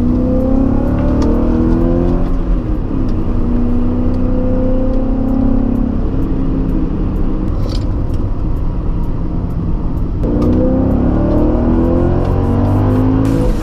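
Supercharged BMW M5 V8 accelerating hard on track, its pitch climbing through the revs, with an upshift about two seconds in and another about ten seconds in.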